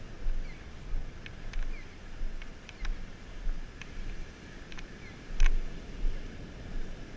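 Wind buffeting the microphone in irregular gusts over a steady hiss of surf, with scattered faint clicks.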